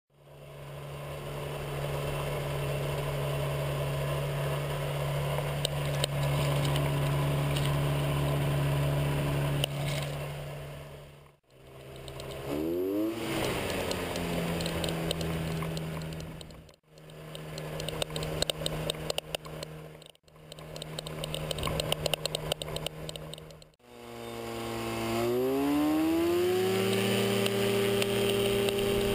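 Weight-shift microlight trike's engine and pusher propeller running at a low steady speed through several joined shots, with a brief rev about halfway. Near the end the engine is throttled up, its pitch climbing steeply, and then holds steady at full power for the takeoff run.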